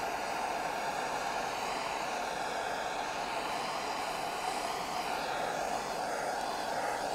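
Handheld gas torch burning with a steady hiss, its flame played over the damp oak head of a barrel to dry the wood before a leak is sealed with beeswax.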